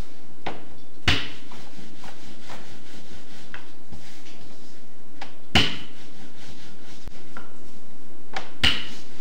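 Three sharp knocks, about one, five and a half and eight and a half seconds in, with lighter taps and clicks between them: dough and utensils handled on a kitchen work surface while manty are being rolled out and shaped.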